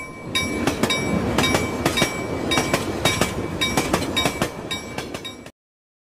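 Train rolling past, its wheels clacking over rail joints in a quick, regular rhythm of about three clacks a second; it cuts off suddenly near the end.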